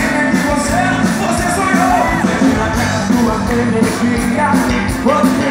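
Live rock band playing loudly through a PA, with drums, electric guitar and a singer.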